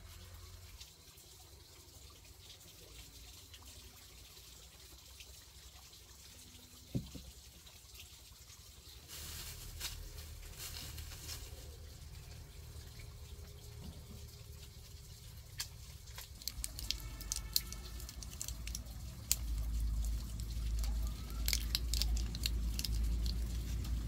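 Light rustling and scattered small clicks and crackles of a plastic bag and a foil blister pack of tablets being handled, starting about a third of the way in and growing busier near the end.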